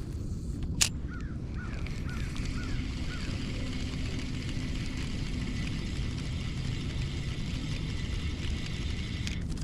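A bird calling a quick series of about six short, rising-and-falling notes, over steady low background noise, with one sharp click just before the calls begin.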